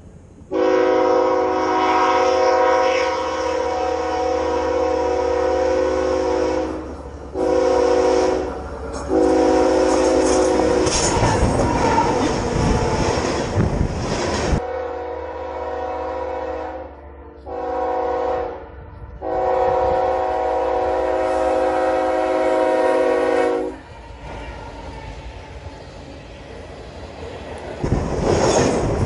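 Freight locomotive (GE ES44AC) multi-chime air horn sounding a series of long and short blasts for the grade crossing. From about ten seconds in, the locomotive and then freight cars roll right over the microphone with a heavy rumble and wheels clattering on the rails. The horn stops about 24 s in, and the cars keep rolling overhead.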